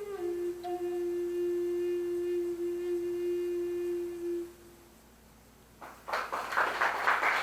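Native American flute holding a long, low final note that fades out about four and a half seconds in. After a short pause, the audience starts applauding.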